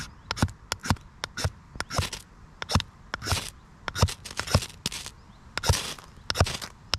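A knife scraped down a ferrocerium rod (fire steel) over and over, two to three sharp rasping strikes a second, some strokes drawn out longer. Each strike throws sparks onto featherstick wood curls, which are taking sparks but not yet catching light.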